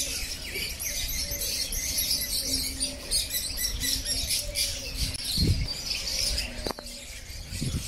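A flock of small caged birds chirping and chattering at once, a dense, continuous high twittering.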